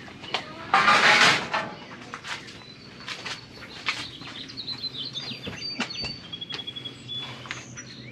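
Metal parts of an electric smoker being handled as its wood chip tray is fitted: a loud scrape about a second in, then scattered clicks and clanks. Birds chirp in the background.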